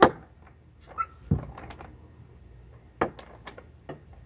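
A series of sharp knocks on a hard surface, irregularly spaced: a loud one at the start, a heavier thud about a second and a half in, and a few lighter taps near the end.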